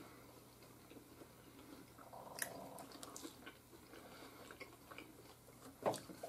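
Faint chewing of hard, dry, oven-baked pizza rolls, with scattered small clicks and one louder knock about six seconds in.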